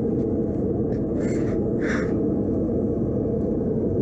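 Steady low rushing noise of the blacksmith's forge running, with two short higher-pitched sounds about one and two seconds in.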